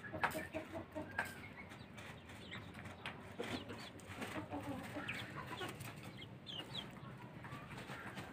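Hens clucking, with short, scattered calls and a few sharp clicks.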